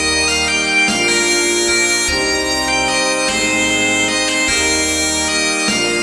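Bagpipe melody over a concert band accompaniment, played on virtual-orchestra (computer-rendered) instruments, with the low band chords changing about once a second.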